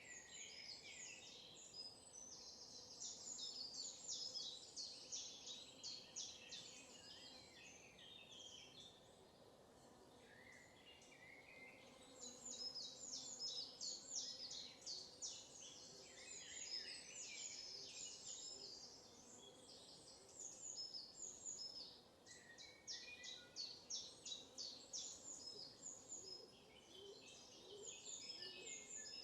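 Songbirds singing, a dense chorus of quick high chirps and trills with a couple of short lulls.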